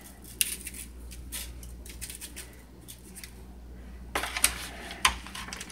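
Dry spice rub being sprinkled and patted by hand onto spare ribs in a disposable aluminium foil pan: light scattered clicks and foil crinkles, growing denser and louder about four seconds in, over a steady low hum.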